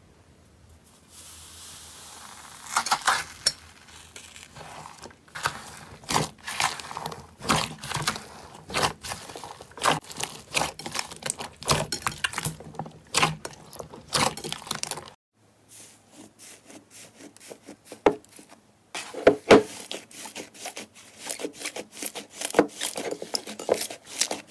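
Slime being played with and pressed, giving a run of sharp crackling clicks and pops, about one or two a second. The sound breaks off briefly twice, about 15 and 18 seconds in.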